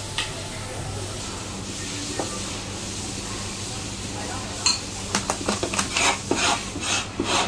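Kitchen clatter: a run of sharp clicks and knocks as a plastic takeaway box of braised goose feet is handled and packed, starting about halfway in over a steady background hum.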